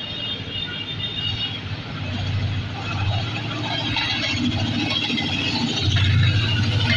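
GE U30C (ZCU-30 class) diesel-electric locomotive approaching and passing at the head of a passenger train. A multi-note horn blast ends about a second and a half in. Then the diesel engine's low rumble grows louder, joined by wheel-on-rail clatter, as the locomotive draws level near the end.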